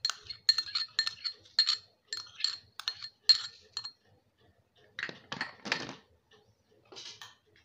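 Metal spoon tapping against a glass bowl to knock chopped onion out, about a dozen ringing clinks at roughly three a second. A few duller knocks or scrapes follow at about five seconds.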